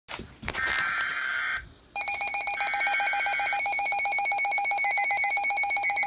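Weather alert radios going off for a severe thunderstorm warning: a short burst of warbling data tones, a brief pause, then a loud alarm beeping rapidly and steadily.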